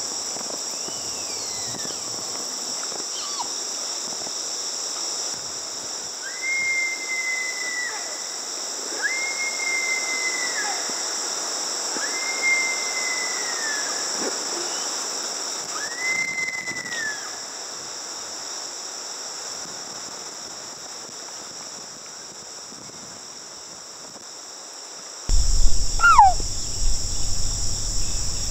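Sika deer hind mewing: four drawn-out high calls a few seconds apart, each rising quickly, holding and then falling away, with a few shorter falling calls around them. A steady chorus of insects runs underneath, and near the end a louder low rumble comes in.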